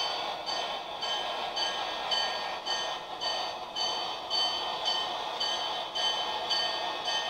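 HO-scale model freight train rolling slowly along the track, a steady rumble of wheels and cars. Over it a locomotive bell rings about twice a second, each strike dying away before the next.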